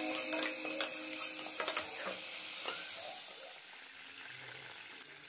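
Background music fading out with a few sharp clicks, then faint sizzling of whole cumin seeds frying in hot oil in a kadai.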